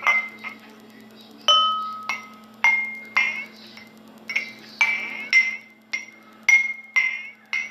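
Glasses filled with different amounts of water being tapped, about a dozen irregular strikes that each ring briefly at one of a few pitches, mostly the same high note.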